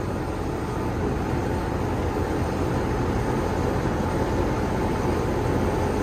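Outdoor air-conditioning condensing unit running steadily, compressor and condenser fan going, with a faint steady whine, while the system is being charged with R-410A refrigerant.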